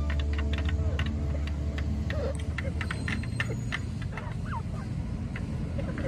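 Chickens' beaks pecking against a metal feed pan in a quick, irregular clatter of sharp clicks, with a few soft short clucks in the middle.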